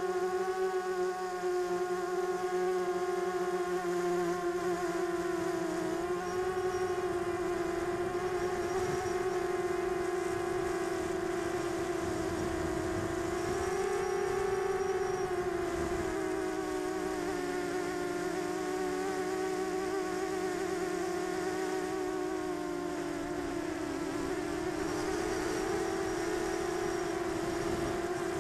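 Brushless motors and propellers of a 250-size Diatone quadcopter buzzing steadily in flight, close to the onboard camera. The pitch wavers gently up and down with throttle, rising briefly about halfway through.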